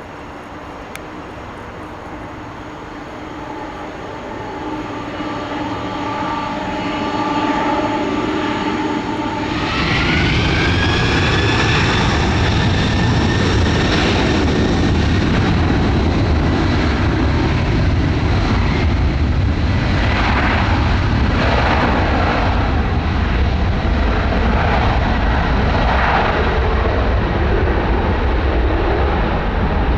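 Boeing 747-400F freighter's jet engines taking off: a steady engine whine grows louder, then about ten seconds in the engines jump in level with a rising whine as take-off thrust comes in. A loud, steady jet rumble follows.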